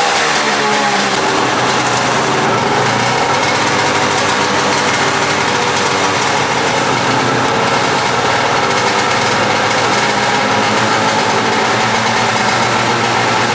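Small engine running, its pitch falling from a rev during the first second and then holding steady.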